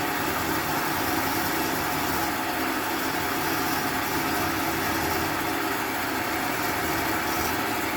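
Small motor running steadily with an even hum, spinning the pool cue while its new tip is shaped.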